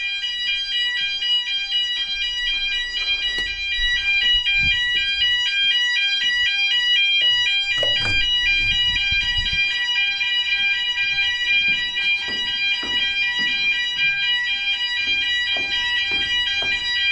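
Fire alarm sounder going off during an alarm test: a loud electronic tone that alternates rapidly between two pitches, with a few knocks and handling noises over it.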